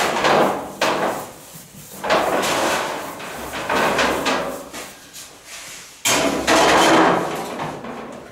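Pieces of pan de muerto dough being cut, slapped and rounded by hand on a floured steel worktable: a series of knocks and scrapes every one to two seconds, the longest and loudest near the end.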